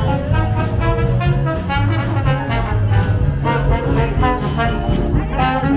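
A jazz band playing, with trumpet and trombone carrying the tune over low bass notes and a steady drum beat.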